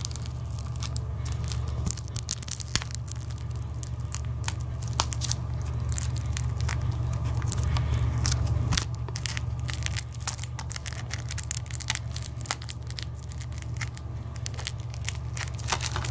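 Plastic shrink wrap on a Blu-ray case crinkling and tearing as fingers pick and pull at it, a run of irregular sharp crackles. A steady low hum runs underneath.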